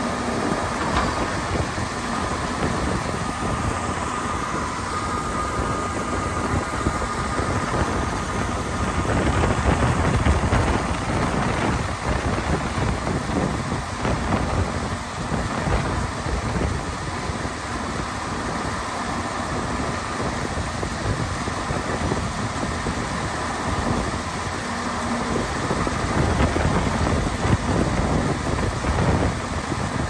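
John Deere 4850 tractor's diesel engine running steadily while its grain cart auger unloads corn into a semi trailer, with wind rumbling on the microphone.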